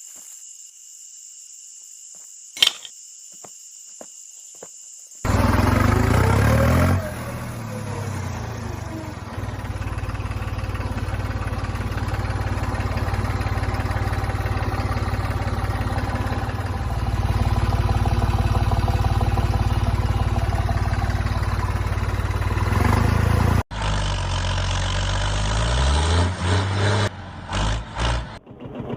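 A small electric motor starts about five seconds in, rising in pitch as it spins up, then runs with a steady hum. After a sudden cut near the end it speeds up and slows down several times.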